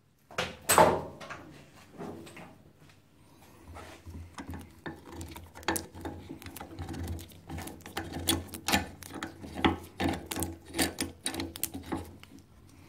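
Metal clicking and scraping as a G-clamp's threaded screw is wound back off a brake caliper piston, a few knocks at first and then a dense run of small ticks from about three seconds in, over a low steady hum.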